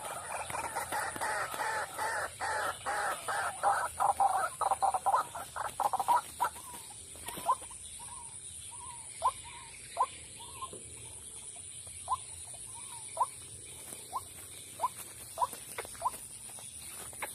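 White-breasted waterhens calling: a fast run of harsh, repeated calls for about the first six seconds, then single short calls about once a second.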